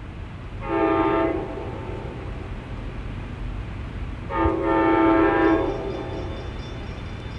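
Locomotive air horn on an approaching train, sounding two blasts: a short one about a second in and a longer one about four and a half seconds in, over a steady low rumble.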